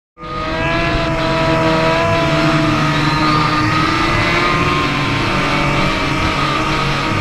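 Several sport-bike engines running together at road speed, a dense mix of engine notes drifting slowly in pitch. The sound starts suddenly a fraction of a second in.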